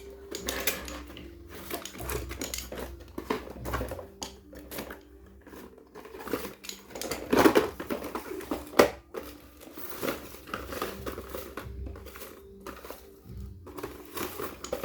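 Packaging being handled and opened: irregular crinkling and rustling with scattered clicks. A louder rustle comes about halfway through, followed by a sharp click.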